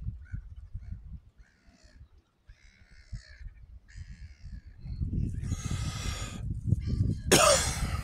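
Gulls calling: a series of short, harsh calls spaced about half a second to a second apart, over a low wind rumble on the microphone. In the second half the rumble and rustle grow louder, and a loud sharp sound comes a little before the end.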